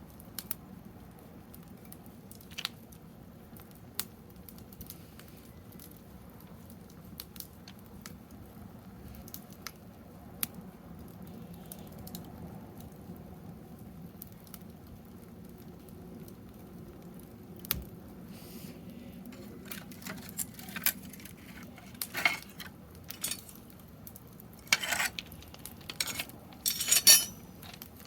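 Wood fire in a garden fire stand, crackling with scattered sharp pops. In the last ten seconds comes a run of louder clatters and scrapes.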